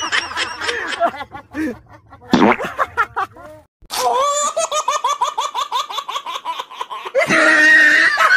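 Hearty laughter in choppy bursts. After a brief silence about four seconds in, a long, even run of rapid, high-pitched laughter, a few pulses a second, with a louder, noisier sound coming in near the end.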